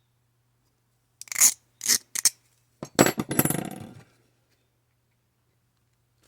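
Small metal parts and tools being handled on a workbench: two short clinking scrapes, then a longer rattling scrape about three seconds in that dies away.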